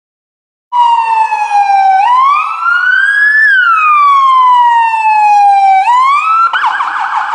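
Emergency vehicle siren, loud, starting after a short silence. It sounds a slow wail that rises and falls once over several seconds, then switches to a fast yelp near the end.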